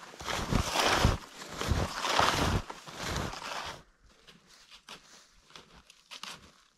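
Snowshoe steps crunching and swishing through deep powder snow close to the microphone, a little under two steps a second. About four seconds in they give way to much fainter, scattered crunching.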